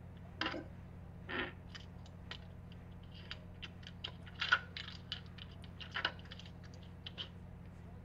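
Ring video doorbell's microphone picking up close handling noise over its steady low hum: two short rustles in the first second and a half, then an irregular run of small clicks and taps, the loudest about four and a half seconds in.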